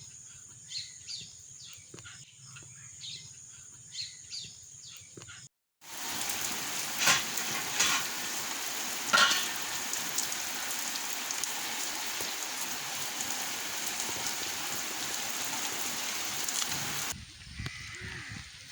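Rain falling steadily, an even hiss with a few sharp drips or knocks. It starts suddenly about six seconds in after a quieter stretch of short high calls, and cuts out again shortly before the end.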